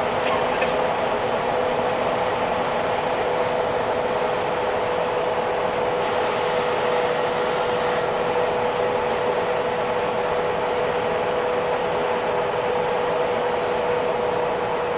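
Steady road noise inside a moving car's cabin, tyres and engine running evenly with a constant droning hum.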